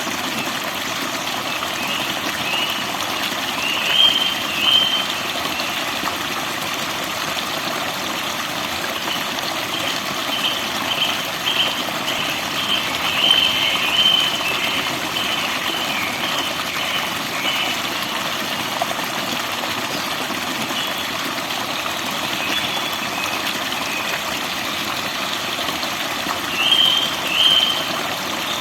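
Forest birds chirping in short, high phrases over a steady rushing noise: a double call a few seconds in, a longer run of chirps in the middle, and another double call near the end.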